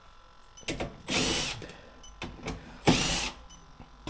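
Cordless drill-driver spinning out the sheet-metal screws of an air handler's access panel, in two short bursts of about half a second each, with a few clicks between them.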